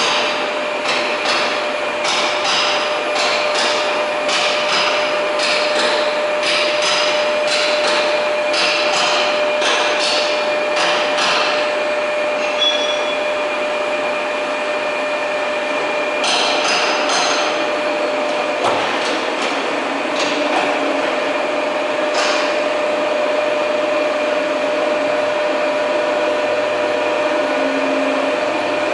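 Machine-shop noise: a steady hum and whine from running machinery, overlaid for the first twelve seconds by a quick series of sharp knocks, about one or two a second, with a few more knocks later.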